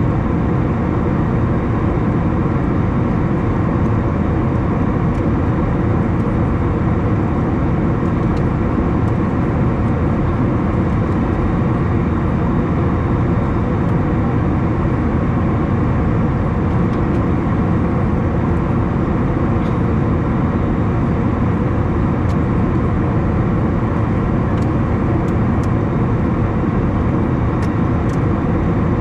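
Steady engine drone and rushing airflow inside the cabin of an Airbus A321 in flight, heard from a window seat, with no change in level.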